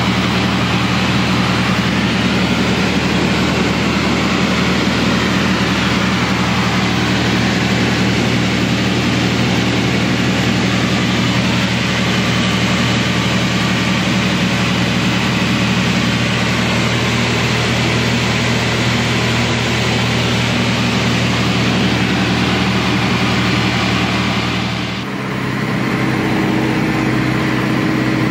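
Light propeller aircraft's engine running steadily, with a low droning note and a rushing hiss over it. About 25 seconds in, the sound changes abruptly to a different steady engine note.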